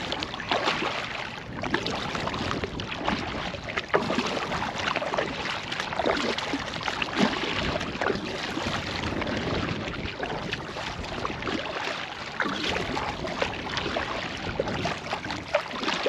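Water splashing and lapping around a kayak being rowed, with irregular sharp splashes from the oars dipping in.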